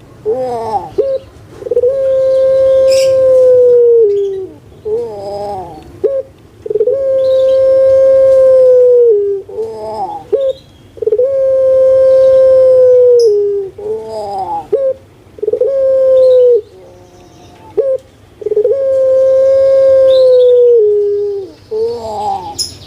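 Puter pelung dove (Barbary dove, Streptopelia risoria) cooing loudly, about five calls in a row: each starts with a few short rising-and-falling notes and ends in one long held coo that dips at the end.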